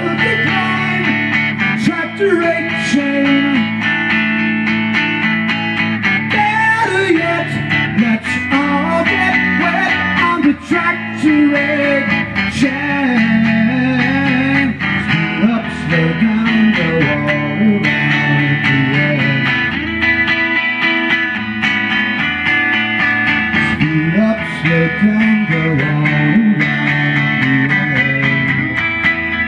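Guitar music: an instrumental stretch of a blues-leaning song, with notes bending up and down in pitch over a steady accompaniment.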